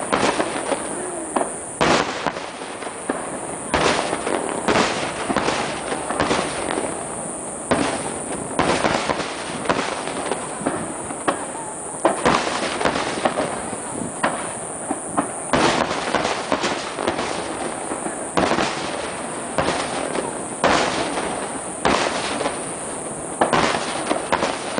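Aerial firework shells bursting one after another, sharp booms every second or two, overlapping with a continuous noisy din between them.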